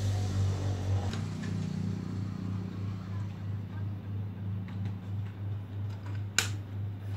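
A steady low hum that pulses evenly about three to four times a second, with one sharp click about six seconds in.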